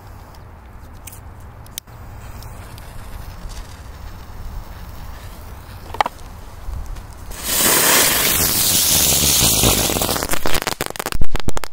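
A small 'rozochka' ground firework going off: after a few quiet seconds it bursts into a loud, steady spraying hiss of sparks for about three seconds. It ends in a quick run of sharp bangs.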